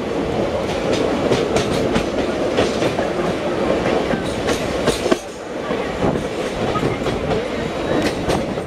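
Passenger train running, heard from an open coach doorway: a steady rumble with the wheels clicking over the rail joints, dipping briefly about halfway through.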